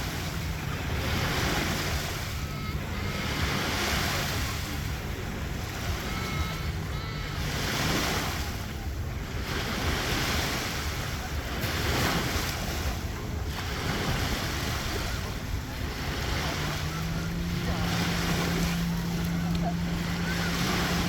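Baltic Sea waves breaking and washing in, surging every couple of seconds, with wind. A low steady hum runs underneath and grows louder about three-quarters of the way through.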